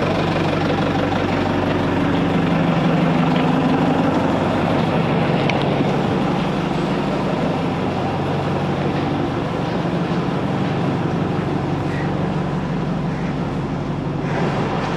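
Engine of railway track-maintenance equipment idling steadily, a constant low hum, with an even hiss of rain over it.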